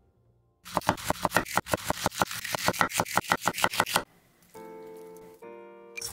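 Knife chopping fast on a cutting board, about eight even strokes a second for some three seconds, as when shredding cabbage. A short phrase of music notes follows.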